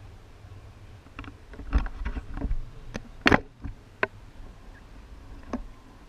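Handling noise on a GoPro camera housing as its pole is swung around: a scattered run of sharp knocks and clicks, the loudest about three seconds in, over low wind rumble on the microphone.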